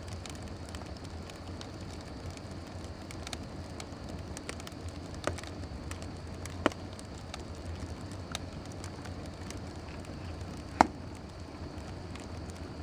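A fire burning with a steady hiss and small crackles, and a few sharper pops about five, seven and eleven seconds in; the last is the loudest.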